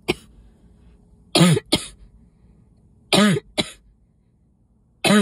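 A woman sneezing three times in a row, a little under two seconds apart, in a sneezing fit set off by dust on top of a cold. Each sneeze is a voiced, falling burst followed by a short, sharp second burst.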